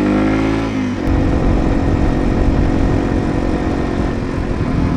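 Yamaha TW200's single-cylinder four-stroke engine accelerating, its pitch rising and then dropping at a gear change about a second in, after which it runs at a steadier pitch with a rough low rumble.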